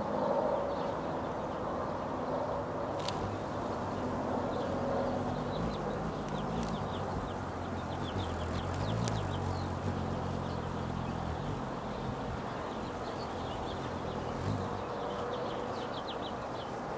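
Backyard ambience: a steady background rumble with a low hum that swells and fades in the middle, and many faint, short, high bird chirps scattered throughout.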